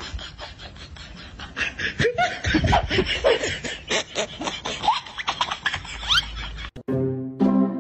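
People laughing and giggling in short bursts. A cut to music comes just before the end.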